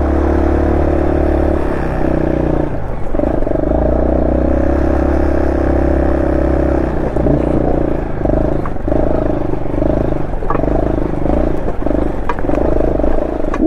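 Honda SL230's single-cylinder four-stroke engine running under way through an aftermarket muffler, on a carburettor re-jetted to suit it. The engine note shifts a few times as the throttle is eased and opened again, with a few sharp ticks in the second half.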